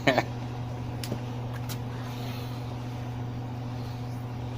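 A steady low mechanical hum, with a couple of faint clicks about a second in.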